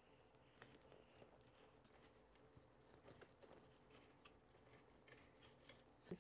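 Near silence, with faint scattered ticks and rustling from blue painter's tape being wrapped and pressed around a balloon's neck on a glass flask.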